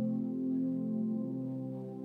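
Ambient background music of long, held tones.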